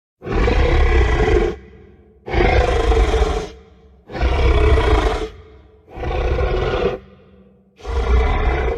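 Custom monster roar sound effect for a Godzilla–Tyrannosaurus rex hybrid creature, repeated five times, each roar lasting just over a second with a fading tail and a deep, heavy low end.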